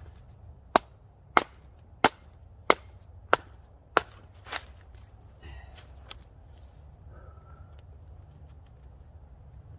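A blade splitting wet wood into kindling: six sharp, evenly spaced strikes about two-thirds of a second apart, then a seventh, softer one. After that there is only low background noise.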